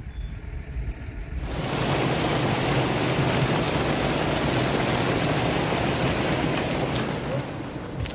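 Water rushing and splashing over a small concrete weir, a steady rush of white water that cuts in suddenly about a second and a half in, after a low rumble.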